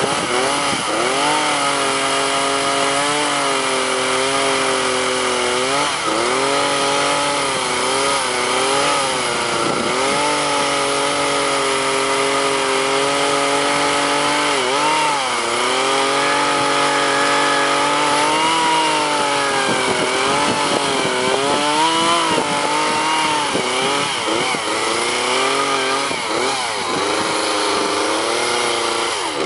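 Chainsaw cutting into wood. The engine's pitch rises and drops over and over as the chain bites into the wood and eases off.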